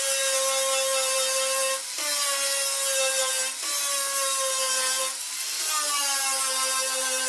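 Angle grinder running with a steady whine while grinding the car's sheet-steel body panel. Its pitch sags and recovers three times, about two, three and a half and five seconds in, as the disc is pressed onto the metal.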